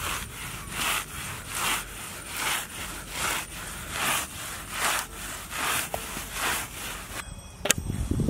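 A whole black pomfret rubbed back and forth against grass by hand to clean its skin: a rhythmic hissing scrape, a little faster than one stroke a second. A sharp click near the end.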